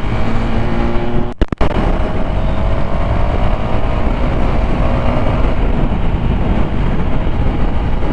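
Motorcycle engine running at riding speed with heavy wind rumble on the rider's microphone, its tone drifting slowly in pitch. The sound briefly cuts out twice about a second and a half in.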